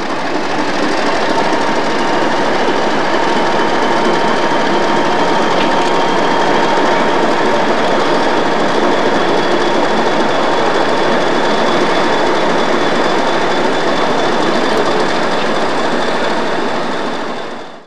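A train running: a steady, loud rail noise that fades in at the start and fades out at the end.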